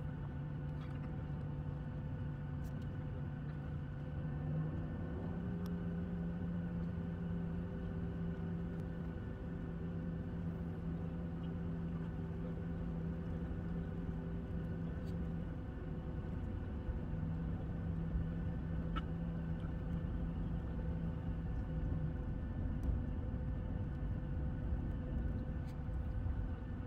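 Boeing 737-700 cabin noise from a seat over the wing as the aircraft taxis: its CFM56-7B engines run at low power with a steady rumble and several steady hum tones. One low hum steps slightly higher about five seconds in.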